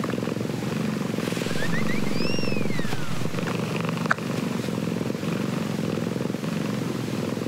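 Domestic cat purring close up: a steady low rattling purr with fast, even pulses, the sound of a contented cat being cuddled. A brief high tone rises and falls about two seconds in, and a light click comes a little after four seconds.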